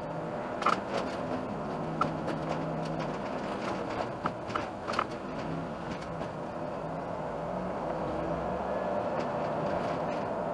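Iveco Urbanway city bus driving and picking up speed: steady engine and road noise that grows slowly louder in the second half, with sharp clicks and rattles in the first few seconds.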